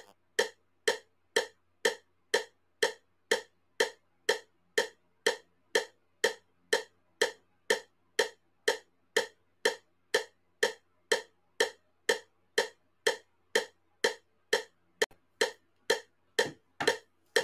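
Metronome clicking steadily at about two clicks a second.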